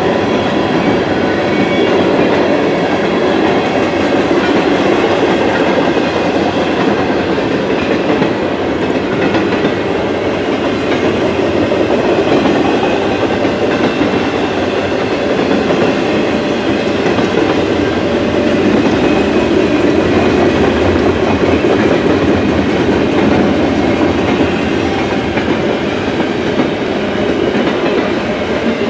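CN double-stack intermodal train passing: the steady rumble and clatter of steel wheels on the rails as the container-laden well cars roll by.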